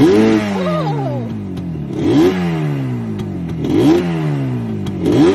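Motorcycle engine being revved in short blips of the throttle, about four times: each time the pitch jumps up quickly and then sinks slowly back toward idle.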